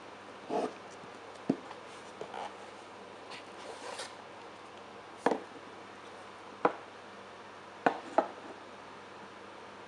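A cardboard CD album box and its photobook handled and set down on a wooden table: about six sharp taps and knocks spaced a second or so apart, with light rustling of card and paper between them.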